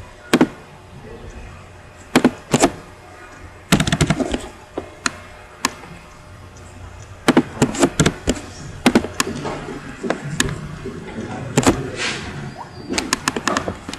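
Computer keyboard typing and mouse clicks: scattered sharp clicks, some in quick runs of several keystrokes.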